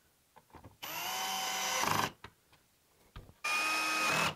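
Cordless screwdriver with its clutch set at 5, running in two short bursts of about a second each as it drives screws into the grille. The motor whine rises as it spins up at the start of the first burst.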